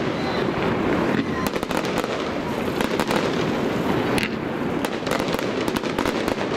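Fireworks display: aerial shells bursting one after another in a continuous din of bangs and crackle, with a few sharper reports standing out.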